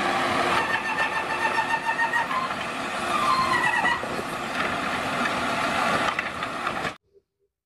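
Automated side-loading garbage truck running, with a whine from its hydraulic arm as it works, dropping in pitch about halfway through as the arm lowers the emptied wheeled bin. The sound stops abruptly near the end.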